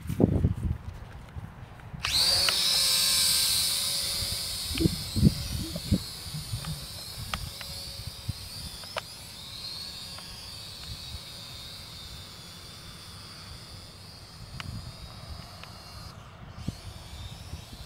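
Toy quadcopter drone's small electric motors and propellers whining at a high pitch. The whine starts suddenly about two seconds in, is loudest just after, then slowly grows fainter with a brief dip near the end. Low wind rumble and thumps sound on the microphone at the start.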